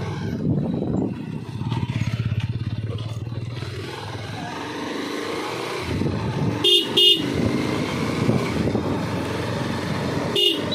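Bajaj Pulsar 220's single-cylinder engine running on the move. A horn gives two quick beeps about two-thirds of the way through and a third beep near the end.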